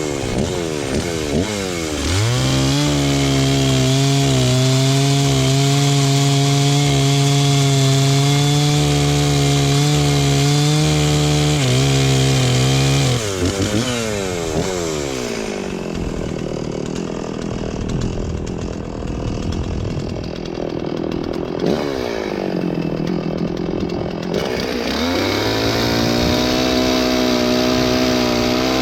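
Stihl 036 Pro two-stroke chainsaw revving and cutting through storm-downed wood, held at a steady high pitch for about ten seconds. It then drops back to a low idle and revs up again near the end.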